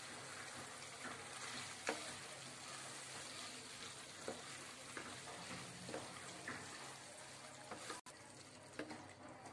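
Food sizzling in a frying pan while carrot strips and chicken in a thick masala gravy are stirred with a wooden spoon. The spoon knocks and scrapes against the pan several times.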